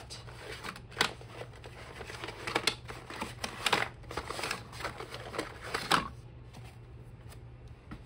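Cardboard rustling and scraping as small lighter boxes are pulled from a shipping box, with light knocks as they are set down on a wooden table; the handling sounds thin out over the last couple of seconds.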